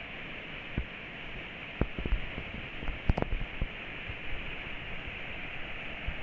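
Torrential rain falling with a steady hiss, with scattered sharp taps and knocks close to the microphone, several bunched together around the middle.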